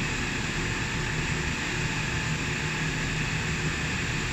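Industrial sewing machines running steadily together, sewing invisible long-chain zipper, a continuous mechanical din with a low hum.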